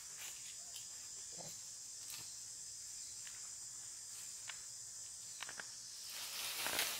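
A steady, high insect chorus of crickets or cicadas in forest, with scattered small clicks and twig snaps from monkeys shifting in the branches. Near the end a louder rustle of branches and leaves swells up and falls away.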